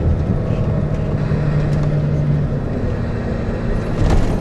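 Tour coach running along the road, engine and road rumble heard from inside the cabin, with a steady low engine tone through the first half. A brief louder rush sounds near the end.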